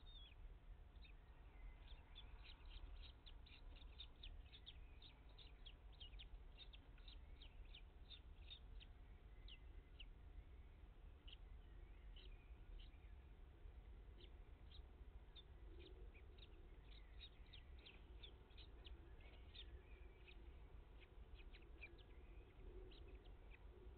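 Common kestrel nestlings cheeping: a faint, rapid series of thin, high, very short calls, several a second, over a steady low hum.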